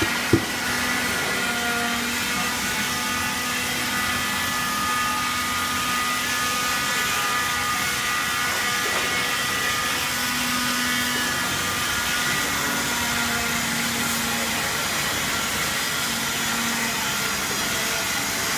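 Steady workshop machinery noise: a constant mechanical drone with a high whine running through it, and a couple of sharp clicks right at the start.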